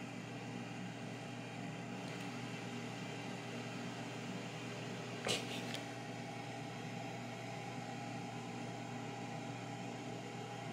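Air fryer running with a steady, even fan hum while it cooks bacon, with one brief sharp sound about five seconds in.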